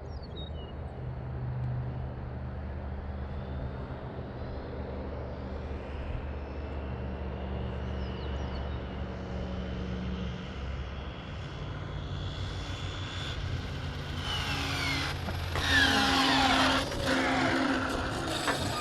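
Arrma Infraction RC car's electric motor and drivetrain whining as the car makes a high-speed pass, building up about two-thirds of the way in and loudest near the end, with the pitch sliding down as it goes by. A steady low hum comes before it.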